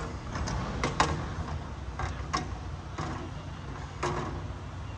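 A steady low engine rumble with about seven sharp knocks and clatters scattered over the few seconds; the loudest comes about a second in.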